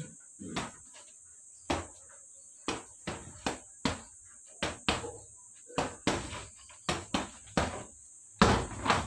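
Gloved punches landing on a hanging heavy bag: a run of sharp thuds in uneven combinations, a few each second, with the heaviest flurry near the end. A steady high hiss runs underneath.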